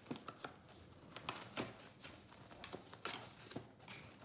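Cardboard Lucky Charms cereal box being pulled open by hand: a string of irregular crinkling and tearing crackles.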